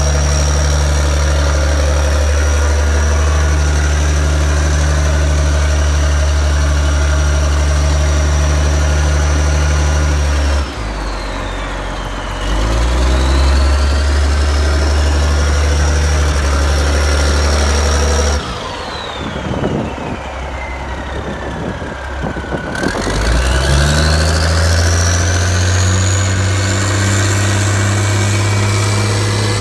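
Diesel engine of a Cat/DJB articulated dump truck running at a steady idle, with a high whine above it. Twice the engine sound drops away, briefly and then for several seconds. Each time the whine falls in pitch, then rises again as the engine picks back up.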